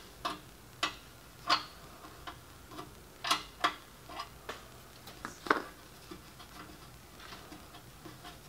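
A wrench clicking and tapping against the brake line fitting as the line is loosened at the brake: about a dozen short, sharp metallic clicks at uneven intervals, thinning out and growing fainter after about six seconds.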